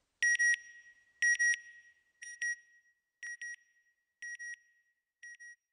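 Electronic double beeps from a logo sting: six pairs of short, high beeps about a second apart, each pair fainter than the last.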